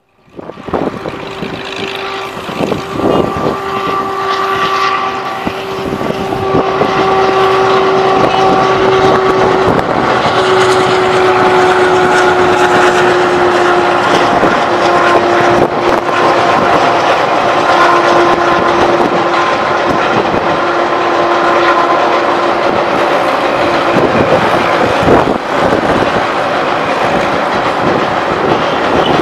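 Garib Rath Express passenger train hauled by a WDM3A diesel locomotive crossing a girder river bridge: steady wheel rumble and clattering over rail joints that builds up over the first few seconds, with occasional clanks. A long steady whine runs through most of the pass, falling slightly in pitch before fading near the end.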